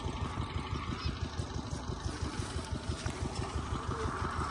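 8 hp diesel engine water pumpset running steadily, a rapid even beat of exhaust pulses.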